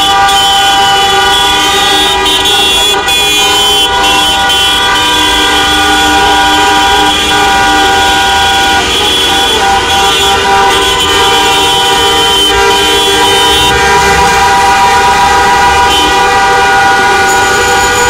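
Many car horns sounding at once from a column of slow-moving cars, a continuous, loud, overlapping din of held tones over the noise of the traffic.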